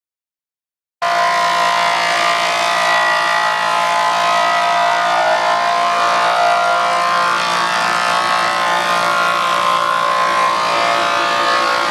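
American 24-inch wood planer running steadily, its 240-volt three-phase motor and cutterhead giving a loud, even machine hum with several held tones. It cuts in suddenly at full level about a second in.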